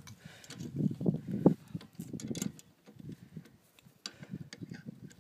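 Irregular light metal clicks and scrapes of a 10 mm wrench turning the brake-cable clamp bolt loose on a trike's brake arm and of the loosened bolt being handled.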